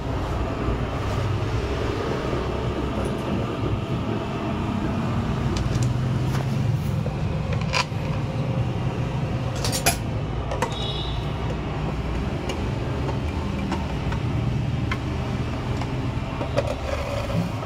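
Steady low background rumble with a few sharp metallic clicks and clinks as engine parts are fitted onto an aluminium crankcase and a bolt is turned with a T-handle wrench.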